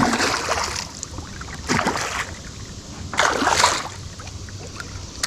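A large bowfin thrashing at the surface on the line, throwing three splashes about a second and a half apart.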